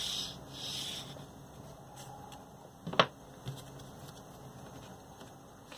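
Quiet handling of a paper strip on a cardboard sheet, with one sharp click about three seconds in and a fainter one just after.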